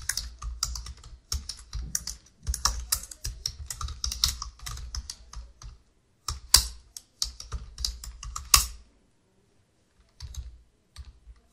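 Typing on a computer keyboard in quick runs of keystrokes, with two louder single key strikes about six and a half and eight and a half seconds in. A short pause follows before a few more keystrokes.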